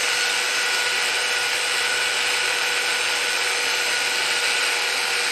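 Handheld electric power sander with a round sanding pad running steadily, smoothing the parted-off top of a small wooden bell ornament: a steady motor whine over the noise of the pad on the wood.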